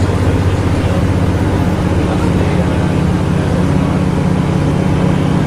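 Volvo B7LA articulated bus heard from inside the cabin while under way: a steady low drone of engine and running gear with road hiss. Its pitch steps up about halfway through.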